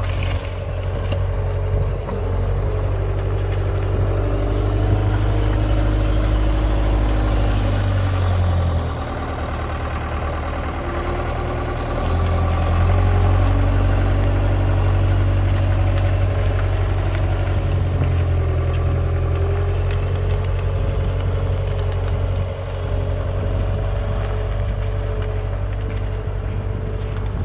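Diesel engine of a Cat 262C2 skid steer running steadily. Its sound drops for a few seconds about a third of the way in, then comes back louder.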